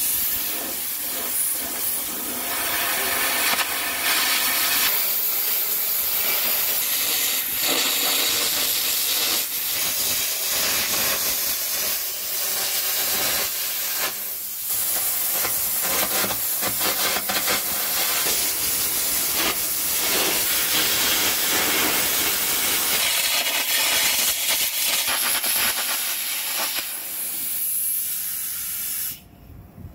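Air carbon arc gouging on the steel of an excavator bucket: a loud, steady hiss of the compressed-air jet with the arc crackling through it. It cuts off suddenly near the end.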